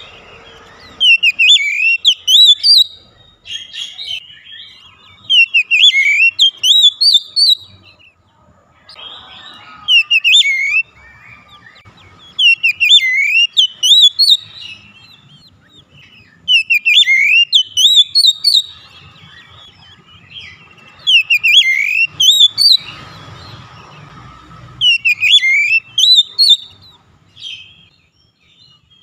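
Oriental magpie-robin (kacer) singing: loud phrases of sweeping, up-and-down whistled notes come every three to four seconds, with fainter chattering between them.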